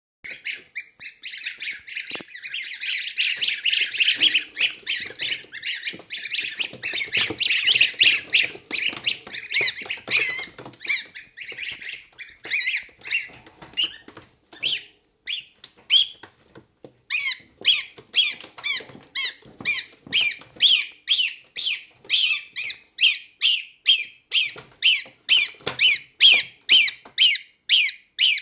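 Two-week-old goslings peeping: a dense chorus of many high calls for the first dozen seconds, thinning out, then single calls in a steady series about twice a second for the last ten seconds.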